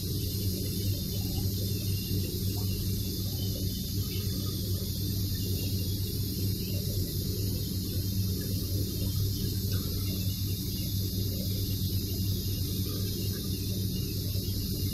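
A steady low electrical hum with a constant high hiss over it, unchanging throughout.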